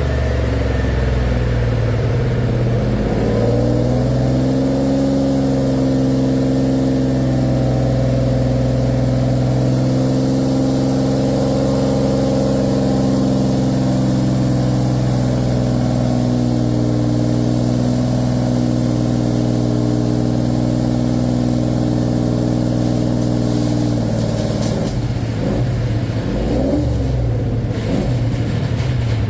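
Car engine under way, rising in pitch over the first few seconds, then holding a steady drone. About 25 seconds in, the pitch wavers and shifts for a few seconds before it steadies again.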